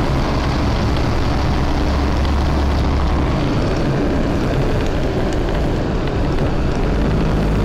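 Waggon & Maschinenbau railbus under way, heard from inside the cabin: its underfloor diesel engine runs with a steady deep drone over the rumble of wheels on the rails. The deep drone eases about three seconds in.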